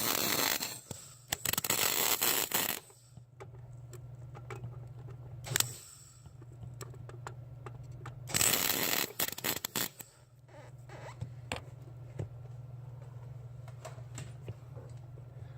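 Electric arc welder crackling in three bursts as a bolt is tack-welded to a car's steel firewall to form a stud, with a steady low hum between the bursts; the thin firewall is being burned through at this power setting.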